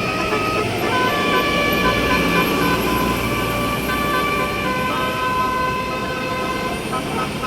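A bus's telolet basuri horn, a multi-tone melodic horn, playing a tune of held notes that step from one pitch to the next, over the bus's engine running.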